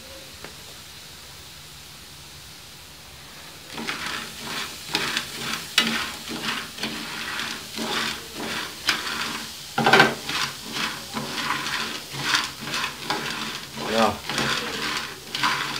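A pan of live click beetles being dry-roasted and stirred. For the first few seconds there is only a faint steady hiss. From about four seconds in, stirring scrapes and rattles the dry beetles around the pan in quick repeated strokes with sharp clicks.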